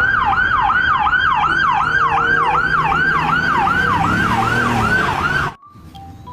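Police-car yelp siren: a fast wail sweeping up and down about three times a second, cutting off suddenly about five and a half seconds in.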